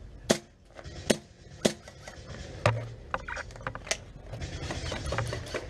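Sharp clicks and knocks from a spring bolt-action airsoft sniper rifle and gear being handled, three in quick succession at the start and several more after, with rustling near the end.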